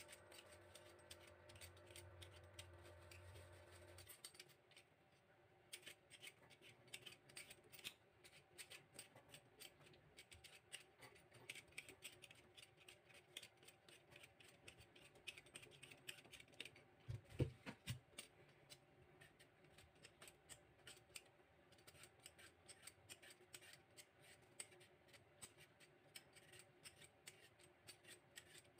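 Hand vegetable peeler scraping down a carrot in quick, repeated strokes, with one louder knock about two-thirds of the way through.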